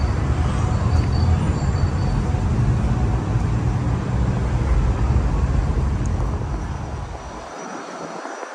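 Wind buffeting the microphone with a loud, uneven low rumble over the noise of the waterfront. The rumble drops away about seven and a half seconds in.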